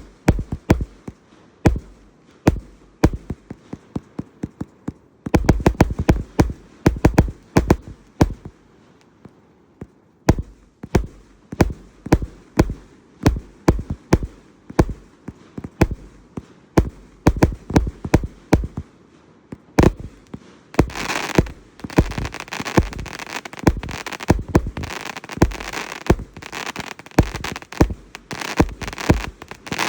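A 293-shot firework cake firing: a long run of sharp launch thumps and bursts, several a second, with a quicker volley about five to eight seconds in. From about twenty seconds in, a dense crackling runs continuously under the shots.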